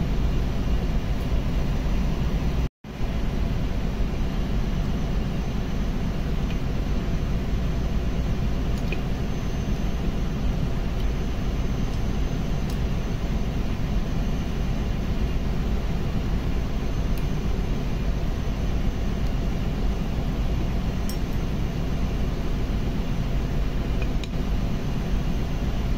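Steady, loud machinery drone with no change in speed, heaviest in the low end, with a few faint clinks of metal pump parts and bolts being handled. The sound cuts out for a split second about three seconds in.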